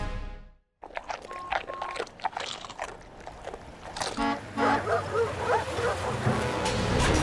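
Theme music fades out into a moment of silence. Then cartoon sound effects: a short vehicle horn toot about four seconds in, followed by dogs barking and yelping.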